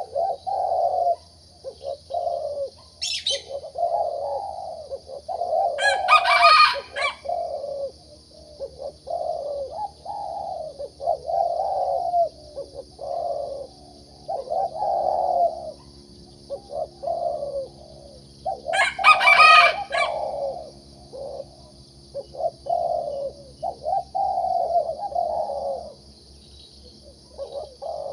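Zebra dove cooing its rippling phrases over and over, a two-year-old contest bird with a middle-pitched, rising voice. Two louder, shriller calls cut in, about six seconds in and again near nineteen seconds.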